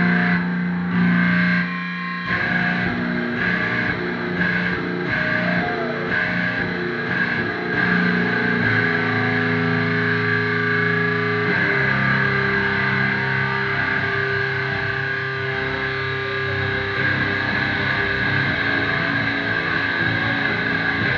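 Distorted electric guitar played live through an amplifier: long, ringing held chords that shift in pitch a few times.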